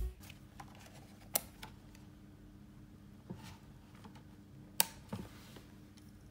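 A few light clicks and knocks from hands handling a Canon DSLR camera, the sharpest about a second and a half in and near five seconds, over a faint steady hum.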